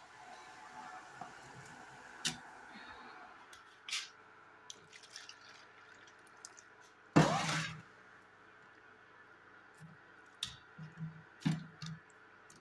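Hot water poured from an aluminium pot into a plastic bowl of meat, splashing and trickling, with a few knocks and one louder, half-second burst about seven seconds in.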